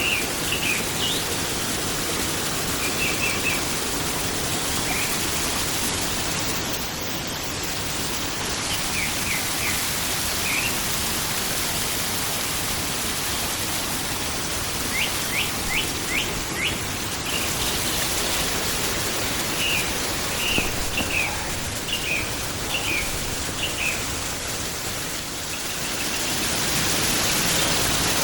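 Forest stream flowing with a steady rushing hiss, while small birds chirp in short scattered bursts, including a quick run of rising chirps about halfway through.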